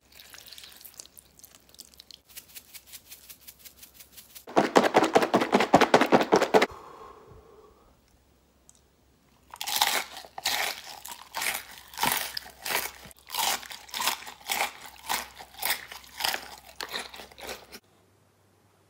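Close, wet eating and handling sounds from a tub of sauce-soaked food. First comes a run of quick, even clicks, then a loud dense squishing for about two seconds, then irregular loud squelches and smacks as the food is eaten by hand.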